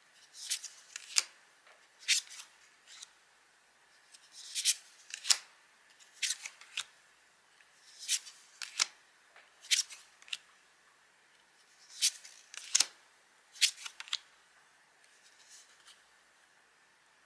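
Tarot cards being flipped over off the tops of three decks, card after card: a run of quick, crisp papery snaps and slides, often in pairs, every second or two, growing fainter near the end.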